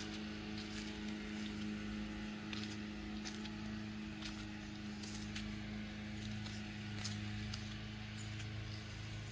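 Footsteps, irregular soft ticks and scuffs, over a steady low electrical-sounding hum.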